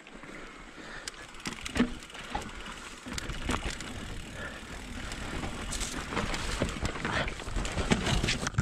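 Electric mountain bike's tyres rolling over dry, loose dirt on a downhill trail. The chain and frame rattle and clack over bumps. A rushing noise grows louder from about three seconds in.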